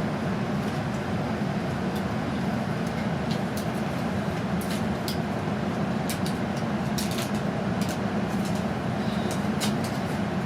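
Steady running noise inside a Hokkaido Shinkansen Hayabusa car under way: an even low rumble with scattered faint ticks.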